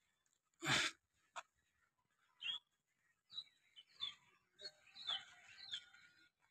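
Birds chirping in short scattered calls, thickening near the end, with one short loud burst of noise about a second in.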